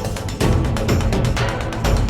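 Background music with a steady beat and heavy bass; a louder, fuller section comes in about half a second in.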